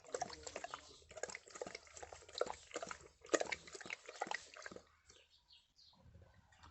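Dog with a cough making a rapid run of short, irregular breathing and throat noises, stopping about five seconds in.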